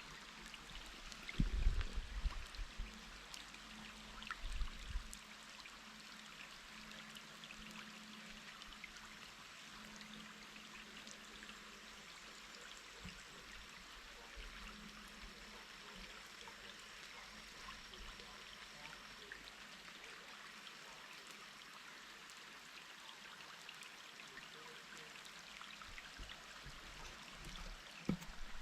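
Turon River's water running steadily, a faint even rushing, with a few low bumps in the first five seconds.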